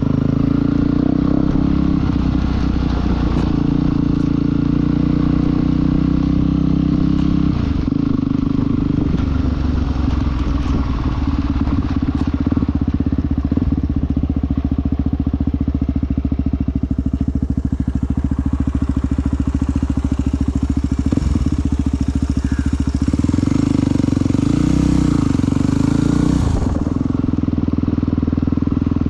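Motorcycle engine running steadily under way, its pitch rising and falling a few times near the end as the throttle changes.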